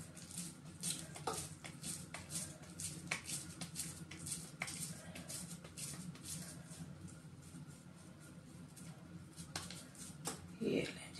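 Soft, irregular pats and squishes of mashed potato-and-chicken cutlet mixture being pressed and patted between the palms into a patty, several a second, thinning out toward the end.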